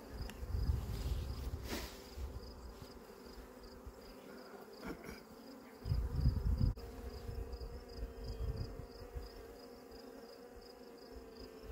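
Honeybees humming steadily around an open hive during an inspection, with two bursts of low rumble, about a second in and again around six seconds.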